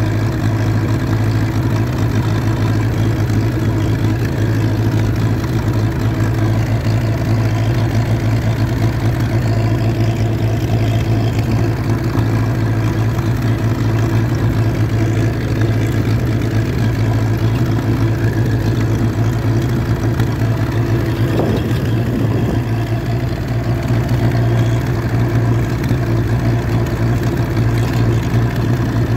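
1958 Massey Ferguson 35 tractor's four-cylinder engine, running on TVO, pulling steadily along the road at an even engine speed.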